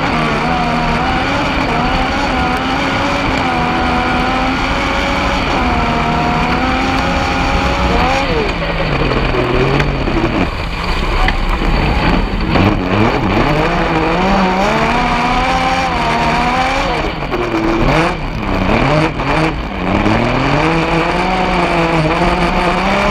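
Yamaha MT-09 three-cylinder motorcycle engine of an RSK kart cross car at race pace, heard from the cockpit, revving up and falling back again and again through gear changes and corners. The revs jump up and down more sharply in the middle, with some sudden knocks.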